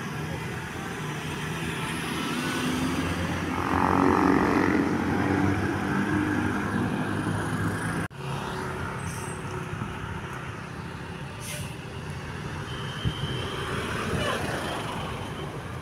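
Large bus running slowly with its diesel engine rumbling and an air-brake hiss about four seconds in. The sound breaks off sharply about eight seconds in, then the engine and traffic noise carry on.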